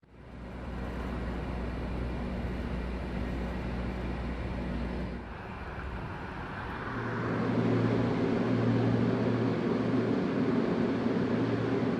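Steady industrial drone from a Bitcoin mining plant's cooling fans: a constant low hum under a broad rushing noise. About five seconds in it changes to a louder drone with a stronger hum.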